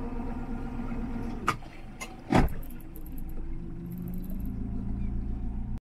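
A boat's engine running steadily at low speed, its note shifting about two-thirds of the way through. Two sharp knocks, the louder about halfway.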